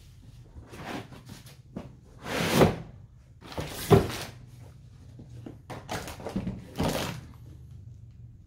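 A hard plastic drill carrying case being handled and slid out: a run of scrapes and knocks, the loudest a drawn-out scrape about two and a half seconds in and a sharp knock about four seconds in.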